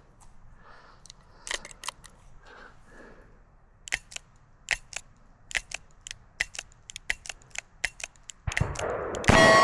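A series of short, sharp clicks or cracks at uneven intervals, roughly one to three a second, with a louder rushing noise starting near the end.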